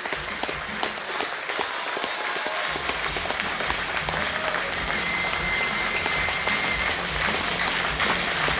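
Convention audience clapping and cheering for a guest's entrance, with music coming in low underneath a few seconds in.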